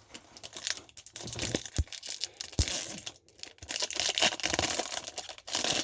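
Foil Pokémon booster pack being torn open and crinkled by hand, a ragged run of crackling and tearing with short sharp rustles.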